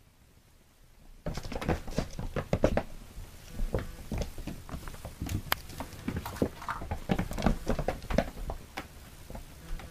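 Two cats play-fighting and chasing across a carpeted floor: rapid, irregular thumps and scrabbling of paws, starting about a second in.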